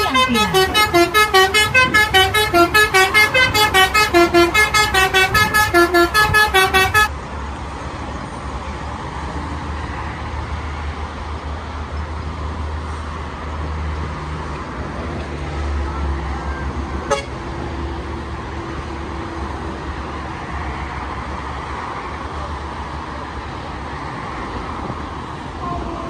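A telolet horn, a multi-tone air horn on a vehicle on the toll road below, playing a fast chiming melody of rapid notes stepping up and down, which cuts off suddenly after about seven seconds. Steady highway traffic rumble follows, with a single sharp click later on.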